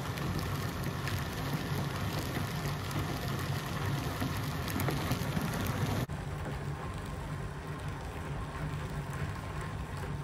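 Bearing test rig running: small DC gear motors turning a loaded shaft on 3D-printed BB ball bearings, a steady whirring hum with faint crackle. The sound changes abruptly about six seconds in, losing much of its hiss.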